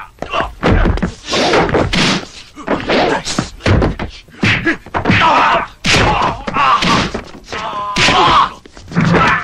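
A brawl: a rapid run of heavy thuds, whacks and slams of blows landing and bodies hitting furniture, with grunts and shouts between them.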